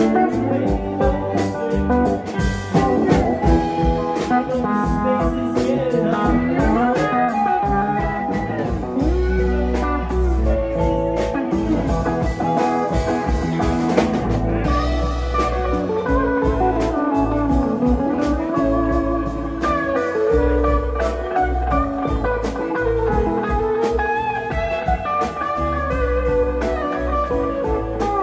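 Live rock band playing an instrumental passage: electric guitar with notes bending in pitch over drums and keyboards, heard mostly through the stage monitors.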